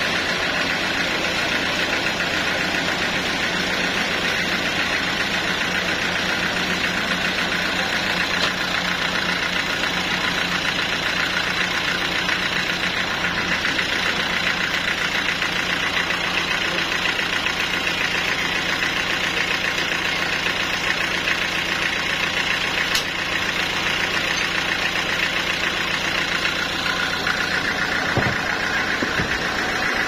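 Band sawmill machinery running steadily with a constant mechanical drone.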